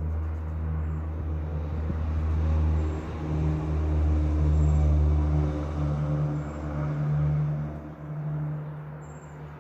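A motor vehicle's engine running, its low hum swelling and easing over several seconds and fading near the end.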